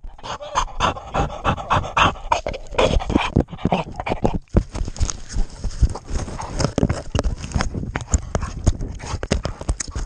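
Labrador panting hard with a GoPro camera held in its mouth, the breathing very close to the microphone. Many clicks and knocks come from the camera being jostled in its jaws and brushed through grass.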